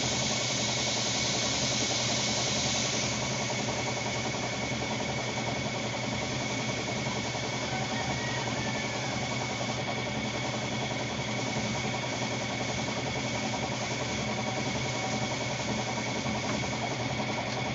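Air compressor running with a steady hum, under the hiss of compressed air and paint from a gravity-feed spray gun. The hiss is strongest for the first three seconds, then settles lower.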